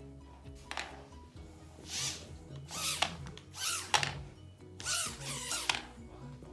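Tiny toy quadcopter drone's motors whirring in several short bursts, spinning up and down about once a second, over steady background music.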